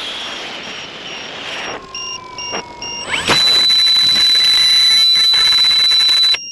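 Wind and flight noise from an onboard-camera RC model plane stop about two seconds in, once the plane is down on the grass. Short high electronic beeps follow, then a loud, steady, high-pitched electronic tone that sounds for about three seconds and cuts off suddenly near the end.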